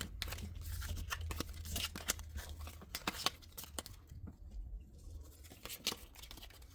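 Pokémon trading cards and foil booster-pack wrappers being handled: a run of short crinkles and clicks that thins out about four seconds in, over a low steady hum.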